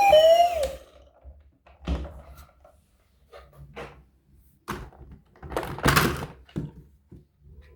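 A toy vehicle's electronic siren winds down and cuts off within the first second. Then come scattered light knocks and clicks of plastic toys being handled, with one longer, louder scrape-like rustle about six seconds in.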